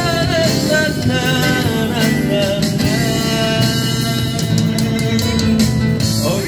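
Live street band playing a ballad on acoustic guitar, electric bass and keyboard, with a male singer holding long sung notes into a microphone over it.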